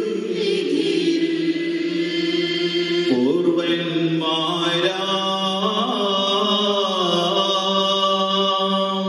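Voices chanting a slow hymn in long held notes over a steady low tone, the melody stepping to a new note a few times.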